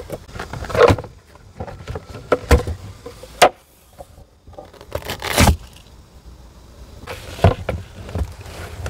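Handling noises from fitting a trunk table's mounting parts in a car's boot: scattered plastic clicks and knocks, with a louder rustle about five seconds in.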